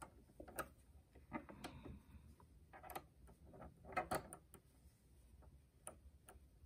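Faint, irregular clicks and small scrapes of a screwdriver turning a sewing machine's needle clamp screw to tighten the needle in place, the loudest cluster about four seconds in.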